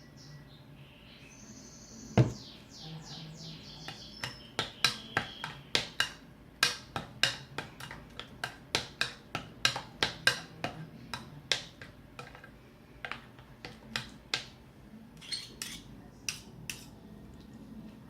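A spoon clicking and knocking against a bowl while tahini is stirred into the zucchini and yogurt mix, sharp clicks about two or three a second. One heavier knock about two seconds in.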